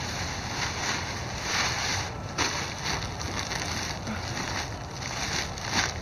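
Black plastic garbage bag rustling and crinkling in several bursts as it is gripped and pulled open, over a steady low rumble of wind on the microphone.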